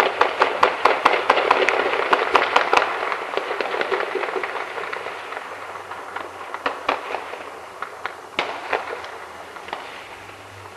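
Heavy gunfire: rapid shots several a second, dense for the first few seconds, then thinning to scattered single shots that grow fainter.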